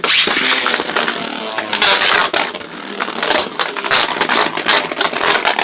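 Two Beyblade Burst tops, Vise Leopard and Revive Phoenix, spinning and battling in a plastic stadium: a continuous grinding whir of their tips on the stadium floor, broken by frequent sharp clacks as they collide.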